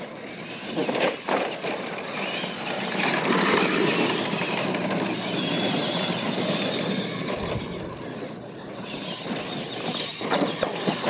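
R/C monster trucks racing on a dirt track: motors and gears whining as they rise and fall in pitch with the throttle, over the rush of tyres on dirt. Several sharp knocks near the end as a truck lands off a ramp.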